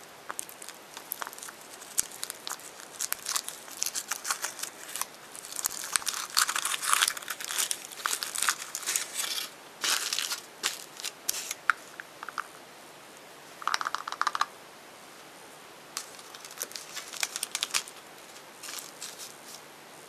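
Foil wrapper of a chocolate surprise egg crinkling and tearing as it is peeled off by hand, in dense crackly bursts through the first half, then a few shorter crinkly bursts later on.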